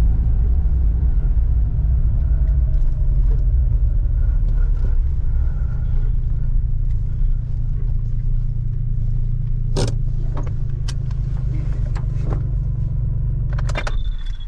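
Suzuki Jimny JA11 driving, a steady low rumble of engine and road noise, with a few sharp clicks about ten seconds in and again near the end.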